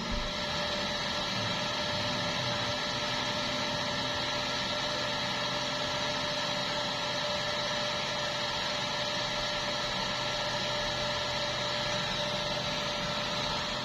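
A steady machine-like hiss with a faint constant hum in it, unchanging throughout.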